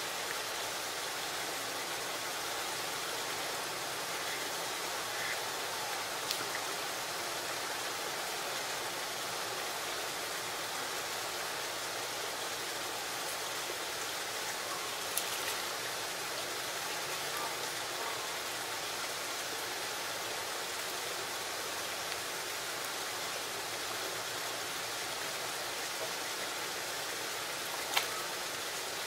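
Steady, even water-like hiss, with a few faint clicks or taps about six, fifteen and twenty-eight seconds in.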